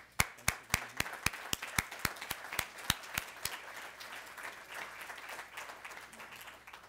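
Audience applauding, with one man's louder, sharp claps close to the microphone at about four a second for the first three and a half seconds. The applause thins and fades out near the end.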